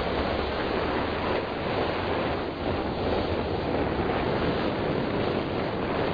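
Steady rush of wind and sea waves, with wind buffeting the microphone.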